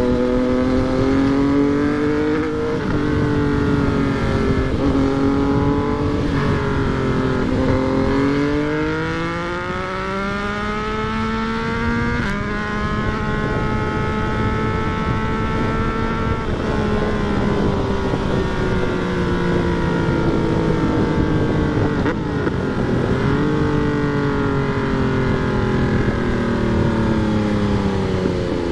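Yamaha MT-09 motorcycle's three-cylinder engine under way. Its pitch climbs and drops back with a few gear changes in the first third, holds nearly steady for several seconds after a shift about twelve seconds in, then eases slowly down. A steady rush of wind and road noise runs underneath.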